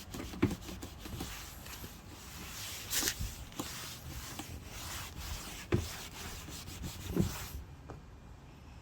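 A cotton rag wet with methylated spirit being rubbed over a freshly sanded timber tabletop to clean it, a steady rustling wipe with a few light knocks, stopping near the end.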